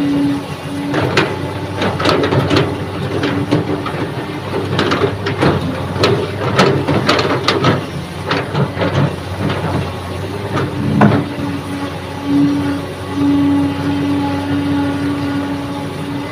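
Kobelco hydraulic excavator digging, its engine running under load while the bucket scrapes and knocks through soil and rock in a rapid run of clatters. About eleven seconds in, the knocking stops and a steady hum is left.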